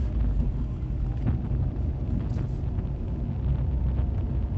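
A car's engine and tyre noise heard from inside the cabin while driving: a steady low rumble.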